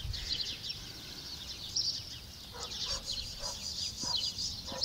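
Small songbirds twittering in a dense, continuous chorus of quick, high chirps.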